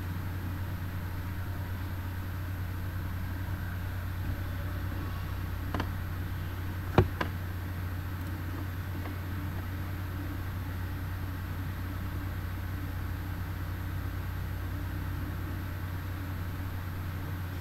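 Steady low electrical hum and background hiss on the recording microphone, with two short sharp clicks about a second apart near the middle, the second much louder.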